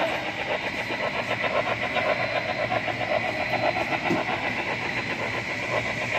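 HO-scale model of a Norfolk and Western Y6B steam locomotive and its freight train running: steady rhythmic chuffing from the locomotive's sound unit, mixed with the cars rolling on the track.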